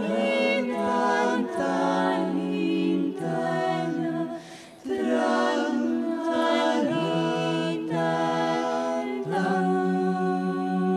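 Female klapa ensemble singing Dalmatian a cappella in close harmony, holding long sustained chords. There is a short break about four and a half seconds in, and a rising slide into a new chord near the end.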